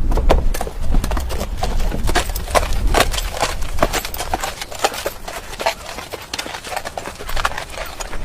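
Irregular sharp knocks, a few a second, over a steady low rumble.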